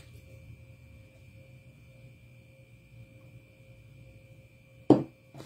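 Low steady electrical hum with a faint thin whine while glue is squeezed from a plastic Mod Podge bottle. Near the end a sharp knock, the loudest sound, and a lighter one half a second later, as the glue bottle is handled and set down on the craft table.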